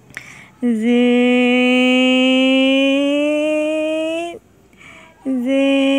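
A woman's voice drawing out a long sing-song call, one held note for about four seconds that slowly rises in pitch, then a second drawn-out note starting near the end, calling a sleeping toddler's name to wake her.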